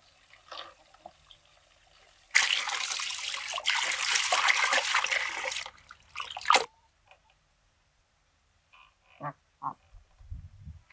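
Water pouring and splashing for about three seconds, then stopping, followed by a few light knocks.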